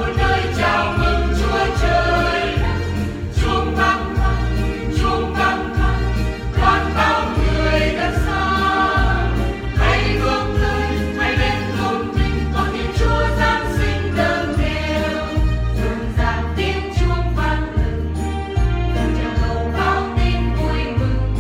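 A choir singing a Vietnamese hymn in harmony over instrumental backing with a steady, regularly pulsing bass beat.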